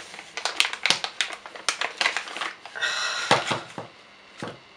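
Small airbrush makeup bottles being lifted out of their box, clicking and knocking against each other and the packaging in a quick irregular series of sharp taps.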